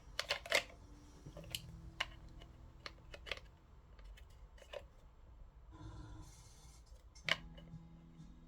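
Scattered sharp clicks and light taps from small hard objects being handled, with the loudest click about seven seconds in.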